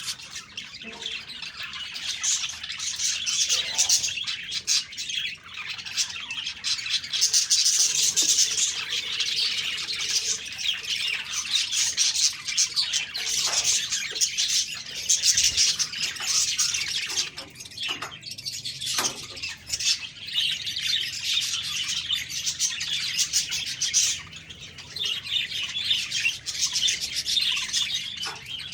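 A flock of budgerigars chirping and warbling continuously, many short overlapping calls forming a dense chatter.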